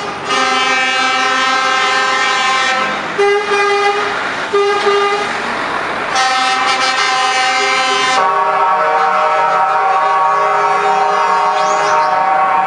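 Truck horns sounding as trucks drive past: a long blast of several tones at once, two short toots, another long blast, then from about eight seconds in a different chord held steadily.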